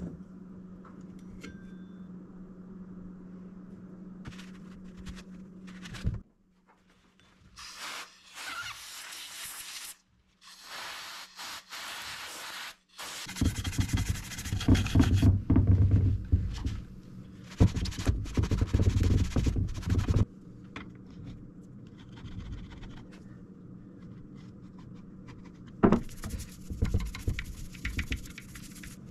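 Toothbrush scrubbing grime off a vintage Craftsman chainsaw's cover and housing, in several spells of brisk rubbing, loudest about halfway through and again near the end. Before the scrubbing, only light handling over a steady low hum.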